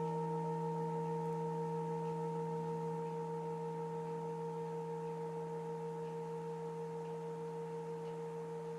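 Singing bowl ringing on after being struck: a steady chord of several pure tones that slowly fades, with a gentle wavering pulse in its loudness.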